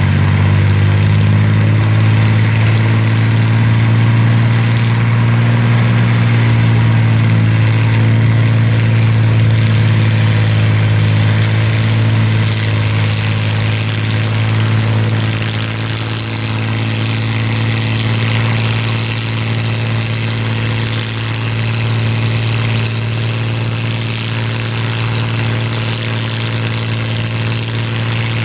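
Rolls-Royce Merlin V12 aero engine running steadily and turning its propeller, a deep even drone that eases off slightly about halfway through.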